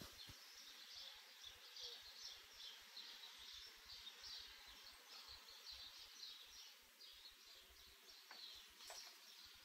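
Near silence: faint background hiss with faint, repeated high chirps of birds.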